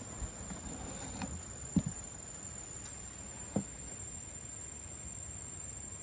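Two dull knocks of a cardboard box being handled, about two seconds apart, over a steady high-pitched insect drone.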